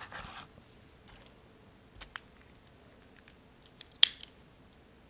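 Clicks from handling a spring-loaded blood-glucose lancing device: a brief rustle, a few light clicks, then one sharp, loud click about four seconds in.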